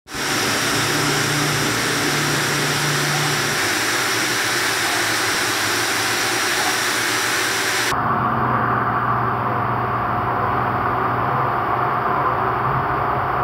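Steady rushing noise with a low hum. About eight seconds in it changes abruptly to a duller, steady whir: a handheld heat gun blowing hot air to shrink a plastic seal onto a water bottle's cap.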